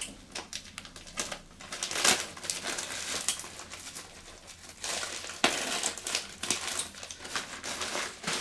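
Plastic packaging crinkling and rustling in irregular bursts as a mailed package is handled and opened by hand.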